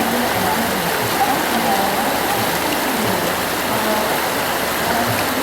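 The River Ganges flowing: a steady, unbroken rush of water.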